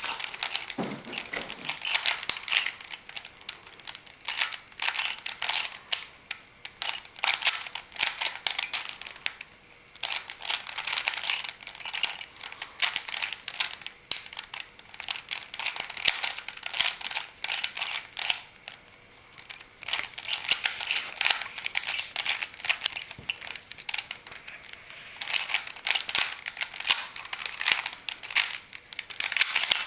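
3x3 Rubik's cube layers being turned in quick flurries: rapid, irregular plastic clicking and rasping, easing off briefly a couple of times.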